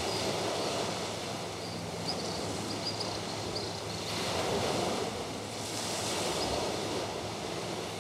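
Small waves washing onto a shallow sandy beach: a steady surf noise that swells a couple of times in the second half.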